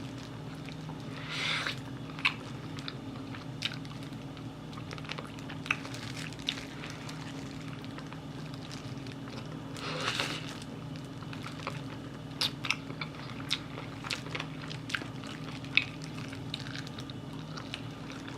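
Close-up chewing and biting into Korean fried chicken on the bone: scattered sharp crunches and wet mouth smacks, with two short hissy bursts about a second and a half in and about ten seconds in. A steady low hum runs underneath.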